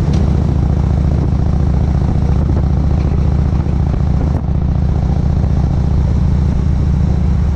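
Cruiser motorcycle engine running at a steady pitch at road speed, heard from the rider's seat, over a steady rush of wind and road noise.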